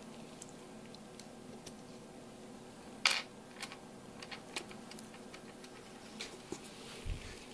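Faint scattered clicks and taps from handling, with one sharper click about three seconds in, over a faint steady hum.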